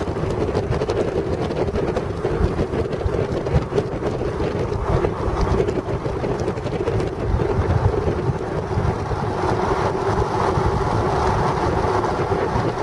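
Wind rushing and buffeting the microphone, over the steady hum of a vehicle's running engine.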